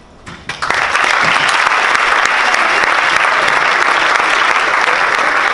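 An audience applauding, the clapping breaking out about half a second in and then keeping up steadily.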